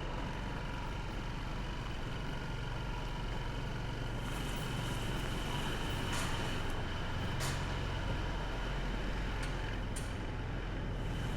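Motorcycle engine running steadily at low speed under an even hiss of wet road and wind, with a few brief clicks.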